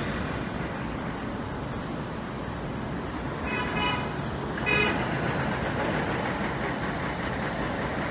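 Steady street traffic, broken by a vehicle horn tooting twice: a half-second toot about three and a half seconds in, then a shorter, louder one a second later.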